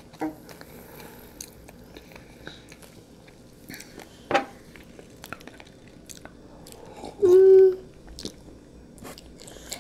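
Soft, close-up chewing of marshmallow Peeps, with small sticky mouth clicks and smacks and one sharper click about four seconds in. A short hummed voice sound comes about seven seconds in.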